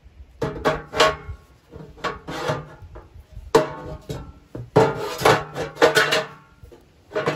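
Steel bottom-saver plates being knocked and scraped into place inside the firebox of an England's Black Bear Survivor sheet-steel camp wood stove: a series of metal clanks, each ringing briefly through the thin steel box.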